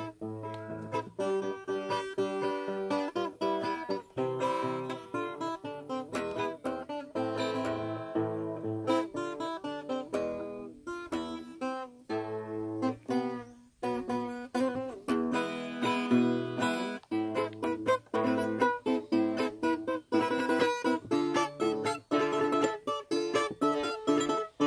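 Background music: acoustic guitar playing a run of plucked notes and chords.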